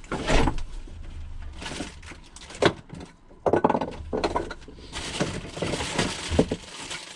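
Plumbing stock and tools being shifted and rummaged through while searching for 45-degree pipe fittings: irregular clattering and knocking, with a longer rustling, scraping stretch near the end.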